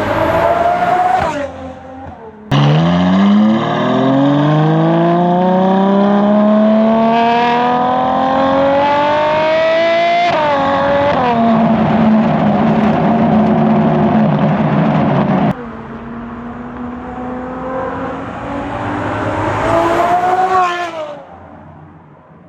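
Ferrari 812 Competizione V12 through a Novitec exhaust, accelerating hard in several short cut-together runs. The engine note climbs steadily, breaks at an upshift about ten seconds in, and climbs again before fading near the end.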